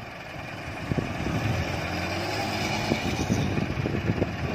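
Heavy diesel engines running at low revs, from the UD dump truck and the front-loader tractor, a steady low drone with irregular clanks and knocks from about a second in.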